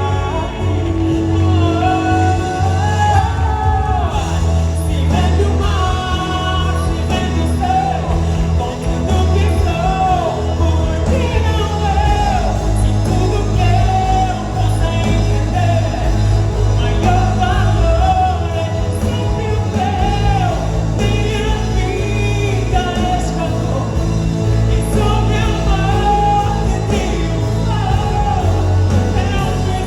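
Live gospel worship music: voices singing a melody over a band with a steady, sustained bass.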